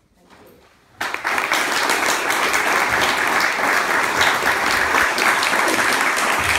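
Audience applauding, breaking out suddenly about a second in at the close of a speech and going on as a dense clatter of many hands.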